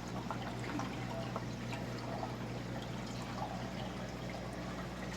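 Aquarium filters trickling and dripping water into the tanks, with small splashes and a steady low hum.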